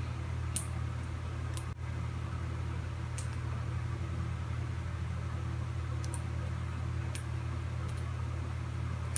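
Steady low mechanical hum, like a fan or appliance running, with about six faint, short, high-pitched ticks scattered through it.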